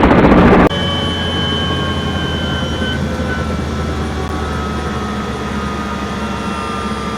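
A loud rhythmic chopping noise cuts off abruptly under a second in, giving way to the steady hum of an aircraft engine with several steady tones over it.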